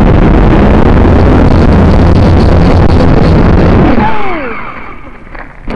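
Syma quadcopter's motors and propellers suddenly running at high throttle, very loud on the drone's own camera microphone, with a steady low hum under the propeller noise. About four seconds in they ease off and the sound drops away with a short falling whine.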